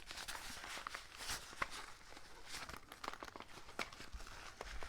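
Faint handling noise: a nylon tool pouch rustling, with scattered light clicks as a small metal mint tin is worked into one of its pockets.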